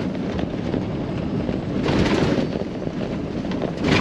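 Cab noise of a Freightliner Cascadia semi truck on the move: steady engine and road rumble with a windy hiss, swelling briefly about two seconds in and again at the end.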